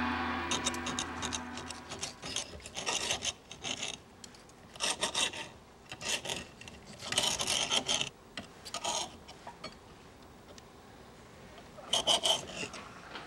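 Table knives sawing through steak and scraping on iron steak plates, in short irregular bursts of cutting, with a pause before a last burst near the end.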